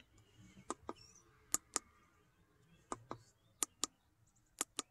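Buttons on a handheld Matco MD1000 Pro Scan Plus scan tool being pressed: five faint, sharp double clicks, each pair a fraction of a second apart, spaced irregularly about a second apart as its menus are stepped through.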